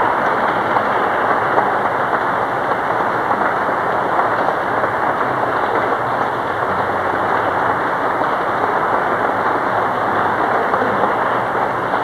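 Audience applauding steadily: dense, even clapping with no break.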